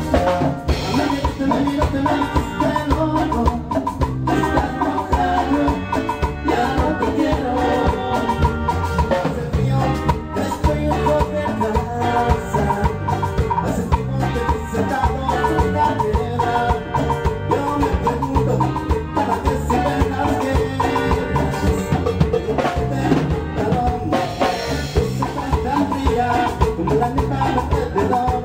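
A band playing Latin dance music with a steady beat on drums and percussion.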